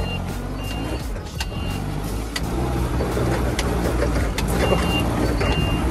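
Propane-fuelled forklift engine running steadily while the machine works through soft, sinking dirt. A short high reversing beep sounds three times near the start and again near the end.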